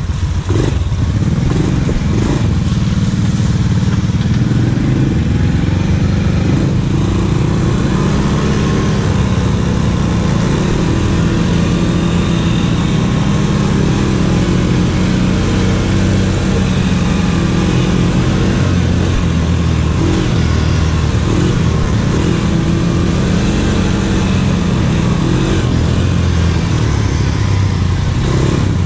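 ATV engine running while riding, its pitch rising and falling with the throttle, over a steady rushing noise.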